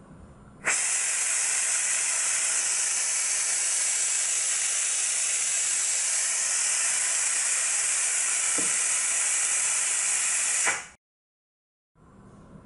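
Compressed-air vacuum ejector of a sponge vacuum gripper hissing steadily while it draws vacuum to pick up and hold two thin corrugated plates. The hiss comes on with a click about a second in and cuts off sharply about ten seconds later.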